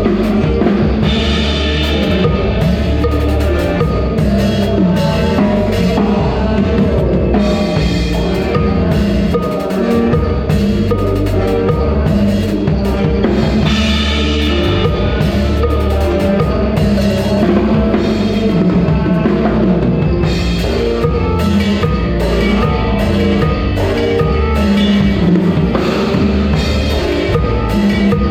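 Live band music with a prominent drum kit, kick and snare keeping a steady beat under the other instruments.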